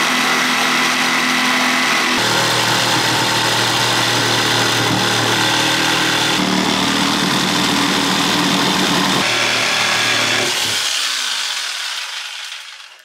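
Jigsaw cutting through a wooden cabinet panel, its motor running steadily with a few shifts in tone, then stopping and dying away near the end.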